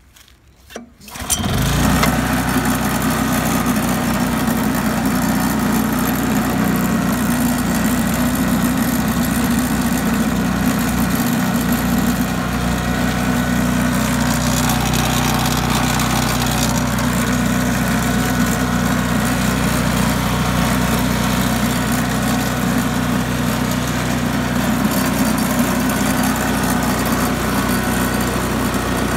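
Small engine of a Pansy walk-behind mini cultivator starting: a couple of short bursts, then it catches about a second and a half in and runs steadily.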